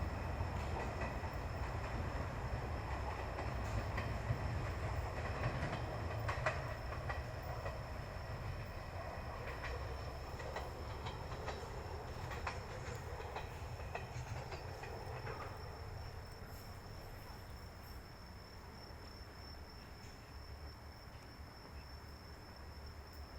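Izuhakone Railway Sunzu Line train running on the tracks by the station crossing, its low rumble fading steadily as it moves away, with the wheels clicking over rail joints until about two-thirds of the way through. A steady high insect trill runs underneath.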